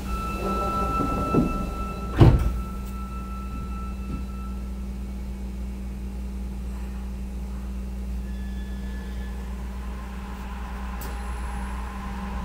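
Inside a Sapporo Municipal Subway Toho Line 9000-series car: a steady tone sounds while the doors slide shut, closing with a loud thump about two seconds in. After that comes the car's steady low hum.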